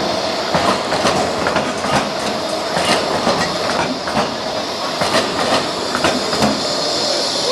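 Tram running along its rails, the wheels clicking and clacking irregularly over rail joints and track work, over a steady running noise.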